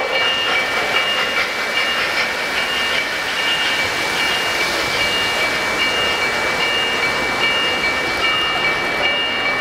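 Three-rail O-gauge model train rolling past on the track: a steady rumble of wheels on rail. Over it, a high electronic beep repeats a little faster than once a second.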